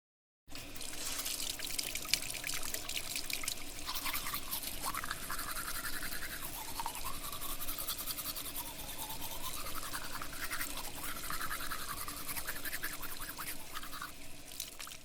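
Teeth being brushed with a toothbrush: fast, continuous scrubbing strokes that start about half a second in.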